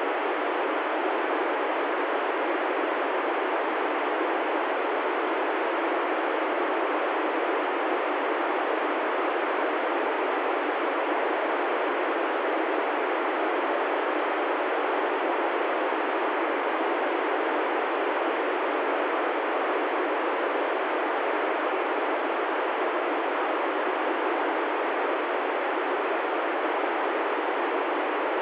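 Steady, even hiss from an ICOM ID-51 handheld transceiver's FM receiver on 145.795 MHz, the ISS voice downlink, with the squelch open and no signal coming in: the space station's transmission has faded out.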